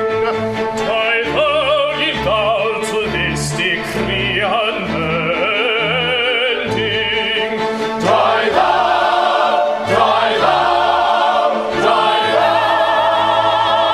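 Operatic singing with strong vibrato, accompanied by an orchestra whose bass notes pulse in a regular rhythm; it swells fuller and louder about eight seconds in.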